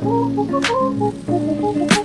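Background music: electronic organ-like keyboard chords and a short melody over a light beat, with a couple of sharp percussion hits.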